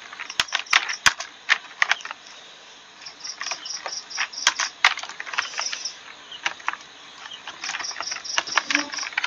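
Computer keyboard keys clicking in irregular bursts as text is typed. Behind them a high, rapid chirping comes in runs of about a second, several times.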